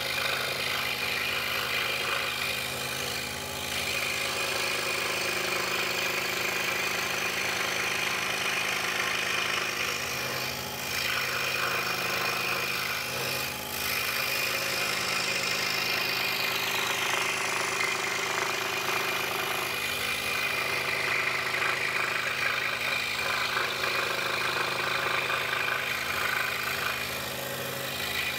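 DeWalt scroll saw running steadily, its blade reciprocating as it cuts through 3/4-inch poplar along a curved puzzle pattern, with a few brief dips in level.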